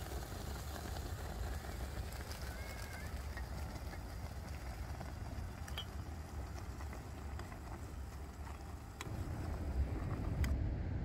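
Outdoor ambience: a steady low rumble with a faint short call about two seconds in and a few light clicks; the rumble grows louder near the end.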